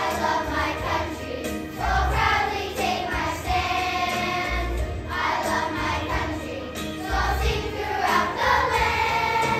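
Children's choir singing together in unison.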